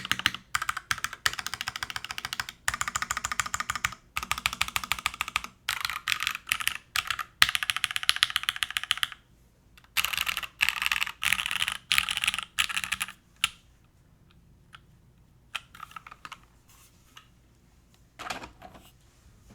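Typing on a Plywrks Spyder TKL mechanical keyboard with lubed and filmed vintage Cherry MX Black linear switches, a carbon fiber plate, top mount and GMK keycaps. Fast continuous typing runs for about nine seconds, then comes in shorter bursts, then thins to a few isolated keystrokes with a short flurry near the end.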